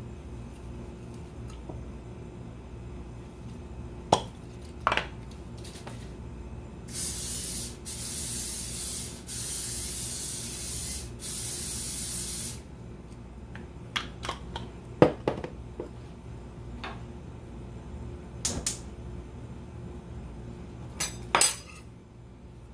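Cooking oil sprayed from a spray bottle in four hissing bursts, the longest about two seconds, in the middle of the stretch. Sharp knocks and clinks of bottles and utensils set down on the counter come before and after, the loudest of them about four seconds in and again after the spraying.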